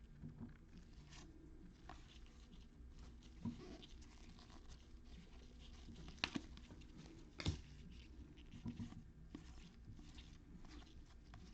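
Faint rustling of trading-card packs being opened and cards handled, with a few sharper clicks.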